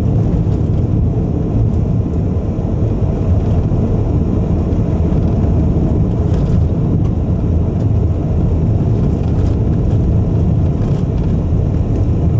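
Steady road and engine rumble heard inside a car's cabin while driving at speed.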